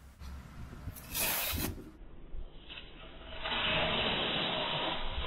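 Tear strip of a paper clue envelope being ripped open: a short rip about a second in, then a long steady tearing from about three and a half seconds in.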